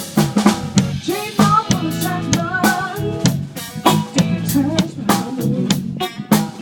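A live band playing at a sound check, the drum kit prominent with regular snare and bass drum hits over sustained instrument notes. A wavering melody line rides on top for a couple of seconds about a second in.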